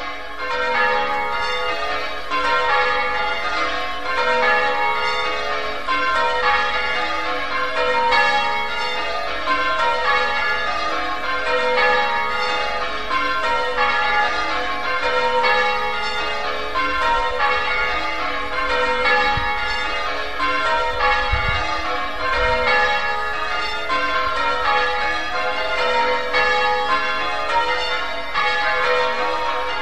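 St. Winnow church's bells ringing changes: a continuous stream of bell strokes in stepped descending sequences, each stroke's ring overlapping the next.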